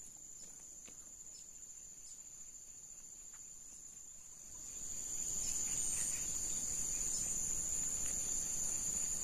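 A steady, high-pitched insect drone of crickets or cicadas. About halfway through, a louder low rushing noise joins it.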